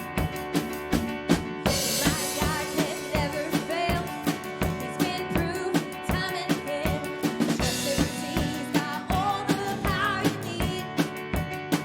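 Live worship band playing a praise song: a drum kit keeps a steady beat with bass drum and snare under held chords, and a wavering melody line comes in about two seconds in.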